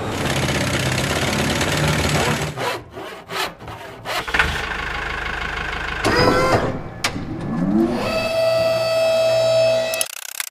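A montage of assorted sound effects cut one after another: an engine-like run, then a few sharp knocks, then sounds gliding in pitch, and finally a steady humming tone that cuts off abruptly near the end.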